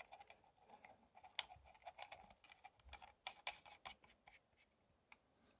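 Faint small clicks and light scraping from handling a rebuildable tank atomizer as it is unscrewed from the vape mod's 510 connector, then near silence.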